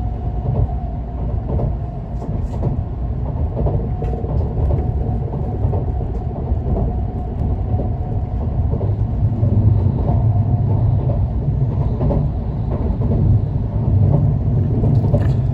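Cabin noise of a Tokaido Shinkansen train running: a steady low rumble with a faint constant hum above it and a few light ticks, growing a little louder in the second half.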